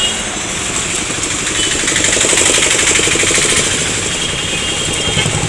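Street traffic with a small vehicle engine puttering close by, loudest from about one and a half to three and a half seconds in.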